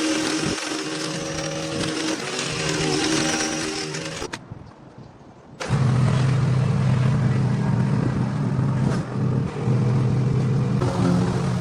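Small petrol engine of lawn-care equipment running steadily under load. It cuts out a little past four seconds and comes back louder and lower-pitched about a second and a half later.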